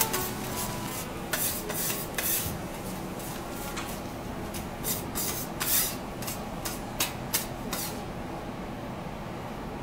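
Metal teppanyaki spatulas scraping and clacking on a steel griddle in quick, irregular strokes as garlic slices frying in oil are tossed and pushed into a pile, over a steady sizzle. The scraping stops about eight seconds in, leaving only the sizzle.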